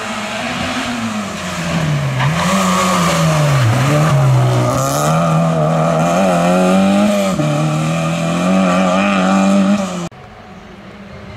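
Rally car engine at high revs through a tight hairpin: the pitch drops and climbs again a few times as the driver brakes and changes gear, then holds high as the car accelerates away. The sound cuts off suddenly about ten seconds in, leaving a quieter, more distant engine.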